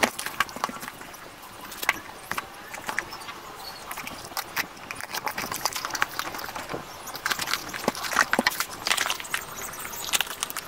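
Hands unwrapping a parcel: crinkling plastic mailer wrap being torn away, then cardboard box flaps rustling and scraping open as a boxed item is lifted out. Short sharp crackles and taps come throughout and are busiest in the second half.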